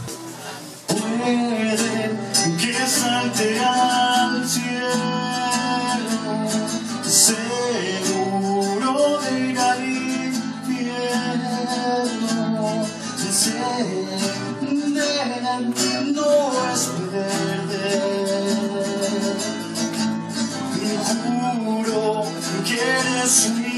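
Acoustic guitar strummed and plucked with a man singing along into a microphone, a live song.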